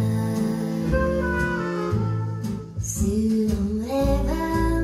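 Instrumental passage of a French song, a lead melody of held, gliding notes over sustained bass and backing, played through a pair of hi-fi loudspeakers. The music dips briefly about halfway through.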